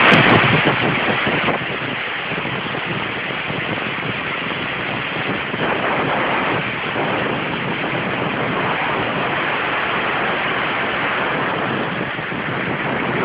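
A machine switched on abruptly, then running with a steady, loud rushing hiss. It is loudest for the first second and a half, then settles a little lower.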